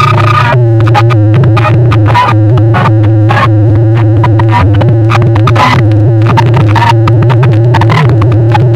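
DJ dance music played very loud through a tall stack of horn loudspeakers, with a steady beat and a heavy low hum under it.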